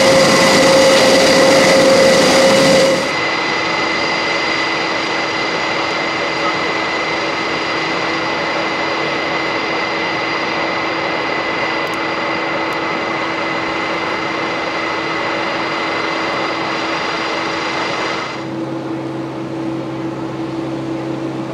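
Steady turbine whine and rushing noise from a parked Airbus A400M with its propellers stopped: its auxiliary power unit running. The tone and level change abruptly twice, about three seconds in and near the end, each time a little quieter.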